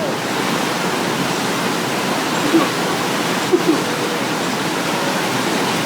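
Steady rush of water pouring through the channel of a river-rapids raft ride, a continuous even hiss, with a few short, slightly louder sounds about halfway through.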